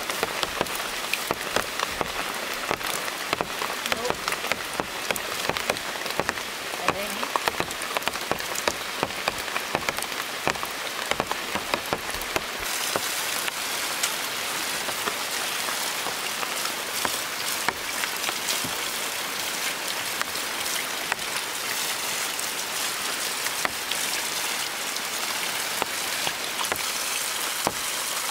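Steady rain pattering on forest foliage, a dense hiss full of separate drop ticks. The deeper part of the sound drops away about halfway through.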